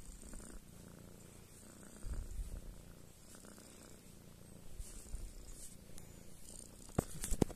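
Domestic tabby cat purring steadily close to the microphone while being stroked. A few sharp clicks come near the end.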